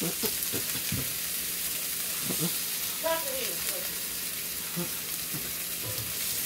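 Thin beef steaks sizzling in a hot frying pan, with a few light knocks and scrapes against the pan.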